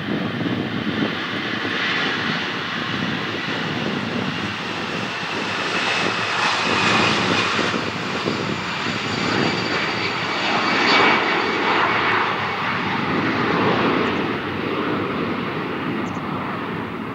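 Airbus A319's twin jet engines at takeoff power as it rolls, lifts off and climbs away: a steady loud roar with thin high whining tones over it.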